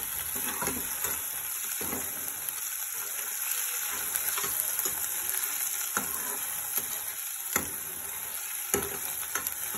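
Chopped onions sizzling in hot mustard oil in a frying pan for a tadka, stirred with a steel ladle that scrapes and taps on the pan now and then.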